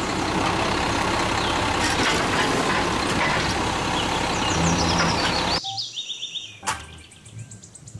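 Automated garbage truck running while its arm lifts and empties a wheelie bin, a steady loud mechanical noise with a few short squeal-like sliding tones near the end, cutting off abruptly after about five and a half seconds. Then much quieter, with a single click.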